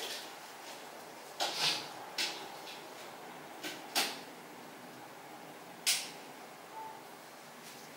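Hands patting and pressing a wet paper sheet mask onto the face and neck: a few short, soft pats and rustles, about five in all, over faint room hiss.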